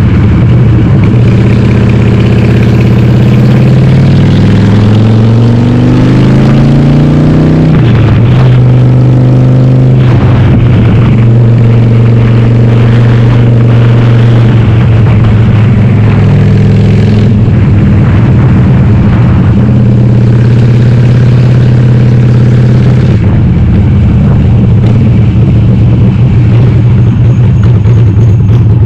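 Harley-Davidson Sportster 1200 V-twin under way, running loud through a Cobra Speedster 909 exhaust with its dB killers removed. The engine pulls up in revs from about two seconds in, drops sharply around eight seconds as the rider shifts up, then holds fairly steady revs while cruising.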